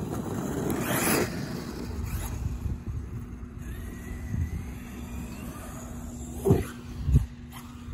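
Traxxas Sledge 6S brushless RC monster truck driving across grass: a loud rushing pass about a second in, a thin rising motor whine in the middle, then two sharp knocks about half a second apart near the end as the truck hits the ground.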